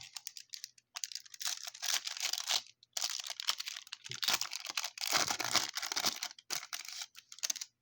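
Baseball card pack wrapper being torn open and crinkled by hand, in irregular crackly bursts with short pauses.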